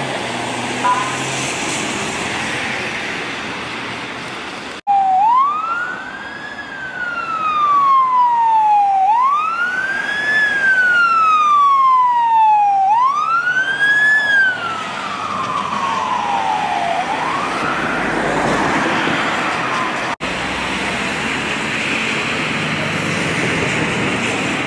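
Emergency vehicle siren wailing, each cycle a quick rise then a slower fall in pitch, about every four seconds, loud as the vehicle passes, then fading away. Steady road traffic noise before and after the siren.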